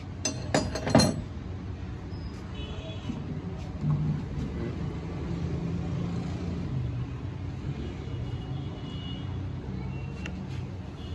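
Metal clinks as tools and parts are handled on a transmission valve body: a quick run of ringing clinks in the first second and a knock about four seconds in. A steady low engine-like rumble runs underneath.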